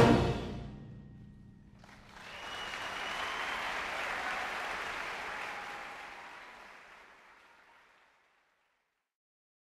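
A concert band's final chord cuts off and rings away in the hall. About two seconds in, audience applause rises, then fades out by about eight seconds.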